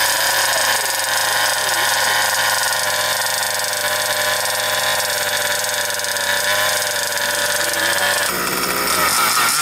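Modified OBR 29.5 cc two-stroke petrol engine of a 1/5-scale RC monster truck idling steadily through its tuned exhaust pipe, its note shifting near the end.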